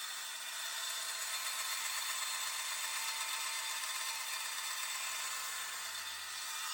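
A power tool grinding or sanding, a steady hiss that runs on without a break.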